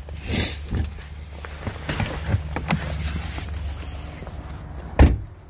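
Small clicks and rustles of a person climbing out of a car over a low steady hum, then a car door shutting with one solid thump about five seconds in.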